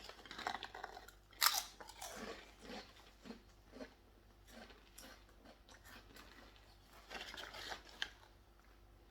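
A person biting into and chewing crunchy potato snack chips: a sharp crunch about a second and a half in, then irregular crunching chews.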